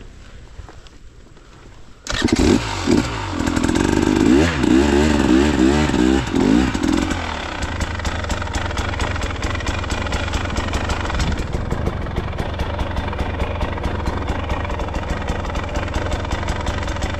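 Dirt bike engine running low, then about two seconds in revved hard and repeatedly up and down for about five seconds, then settling into a steady, even running note.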